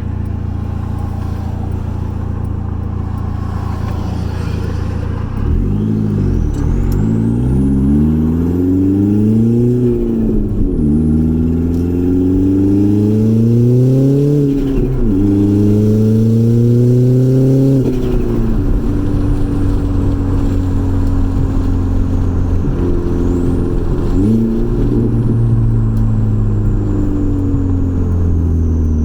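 Audi B5 A4 turbocharged 1.8-litre four-cylinder engine, its stock K03 turbo at maximum boost. It runs steadily, then from about five seconds in accelerates, the revs climbing and dropping through three gear changes. It then settles to a steady cruise with a brief dip and rise near the end.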